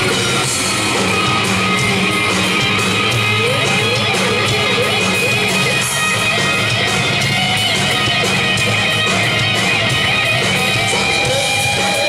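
Live rock band playing an instrumental passage with no singing, an electric guitar to the fore playing bending, wavering notes over a steady bass and drums.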